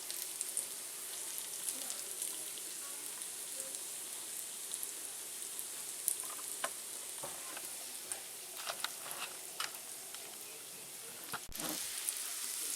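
Potato wedges sizzling in oil in a skillet, a steady hiss with scattered crackles and pops as they sear to build a brown crust.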